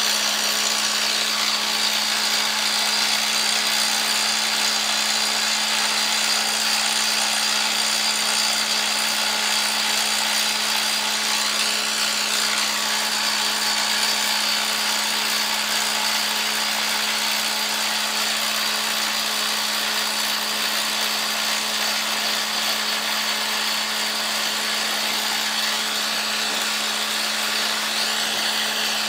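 Truck-mounted borewell drilling rig running steadily while drilling, with compressed air blowing the rock cuttings out of the bore as dust: a continuous rushing noise over a steady low hum.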